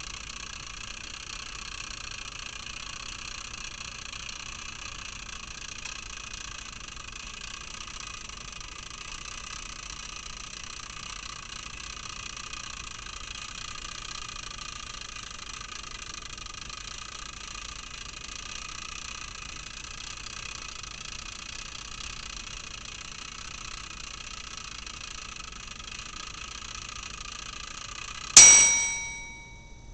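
Classic mechanical kitchen timer running steadily as it counts down, then its bell goes off near the end: one loud ding that rings out for about a second and a half.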